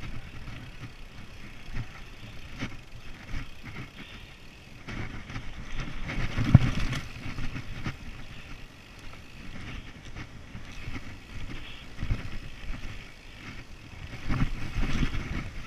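Mountain bike riding fast over a dirt singletrack: tyres on packed dirt and roots, with the bike rattling and knocking over bumps, loudest about six and a half seconds in and again near the end. Wind noise on the handlebar camera's microphone.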